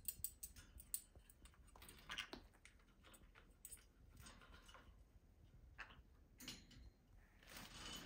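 Faint scattered clicks and scratches, a quick run of them in the first second, with a few soft rustles, from a green-cheeked conure climbing about its wire cage on the bars and perches.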